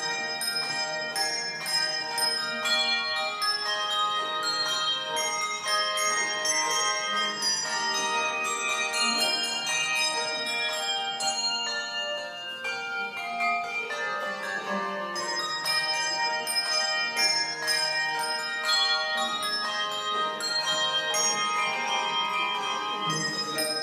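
Handbell choir playing a rag on brass handbells: many bells struck in quick succession, their ringing notes overlapping into a continuous tune.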